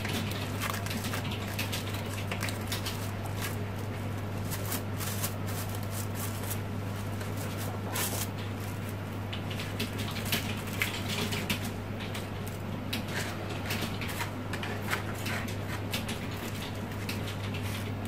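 Crepe paper rustling and crinkling in short irregular crackles as hands fluff and shape the petals of a paper flower, over a steady low hum.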